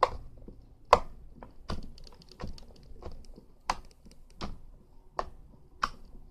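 Sand-filled homemade slime being squeezed and kneaded by hand, popping with sharp clicks about every three-quarters of a second as trapped air bursts.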